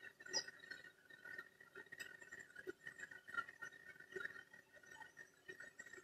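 Faint steady hum of a small 125 mm bathroom exhaust-fan motor running, with a few light ticks.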